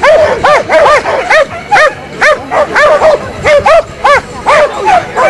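A dog barking in a rapid, unbroken string of high yips, about two or three a second.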